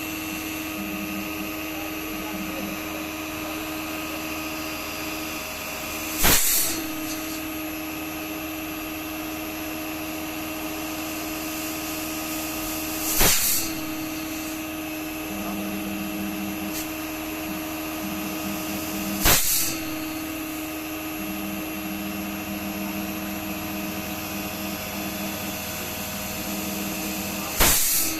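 A steady machine hum holding a few fixed tones, broken four times by short, loud bursts of hissing noise spaced roughly six to eight seconds apart.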